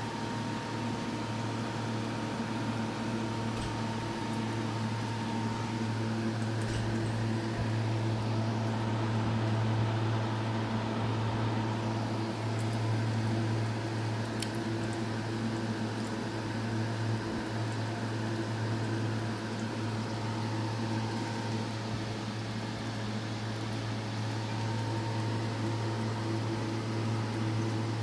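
Steady low electrical hum of an aquarium sump filter's pump, with a faint hiss and a few faint ticks.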